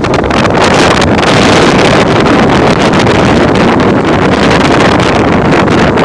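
Rough surf breaking and washing up a sand beach under a high-wave advisory, with wind buffeting the microphone: a loud, steady rush of noise.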